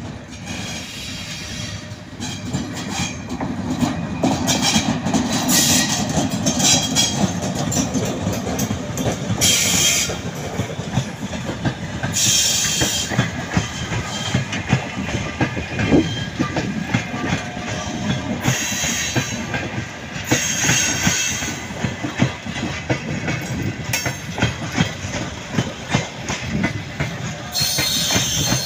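Passenger train hauled by an EP1M electric locomotive rolling past as it departs: a continuous rumble with the clickety-clack of coach wheels over rail joints, getting louder over the first few seconds. Short bursts of high hiss come and go.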